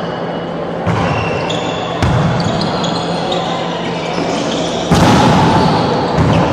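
A volleyball rally in an echoing gym hall: the ball is struck three times, about a second in, at two seconds and, loudest, about five seconds in. Players' and spectators' voices and a steady hum run underneath.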